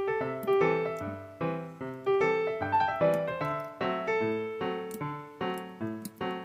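Background piano music: a gentle melody of struck notes, several a second, each fading away.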